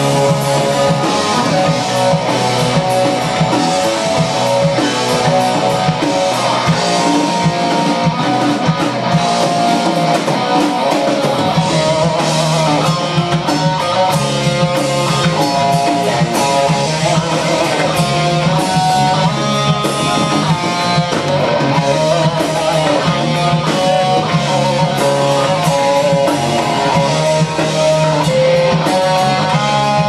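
Live hard-rock band playing an instrumental passage: electric guitar leading with fast-changing notes over drum kit and bass, no vocals.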